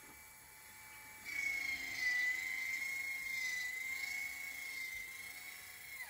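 Hike Crew RV roof vent's lid-lift motor whining steadily as it raises the lid. The whine grows louder about a second in and stops with a short drop in pitch near the end, as the lid reaches fully open.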